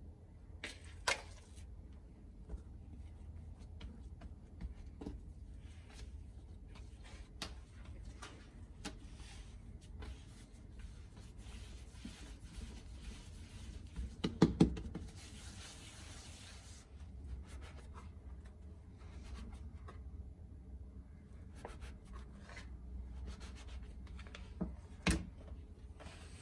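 Hands kneading and handling soft bread dough on a floured countertop: quiet rubbing and pressing, broken by a few knocks on the surface, the loudest a short cluster about halfway through and another near the end. A faint low hum runs underneath.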